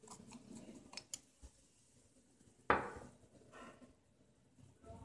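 Metal knife blade scraping and tapping against the inside of a stone mortar while mixing a sticky paste with powder, with a few light clicks and one louder knock a little past halfway.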